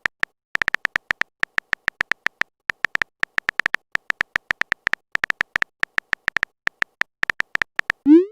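Text-typing sound effect: a quick, irregular string of short high electronic blips, one per character, at about five a second. A short rising swoop comes at the very end.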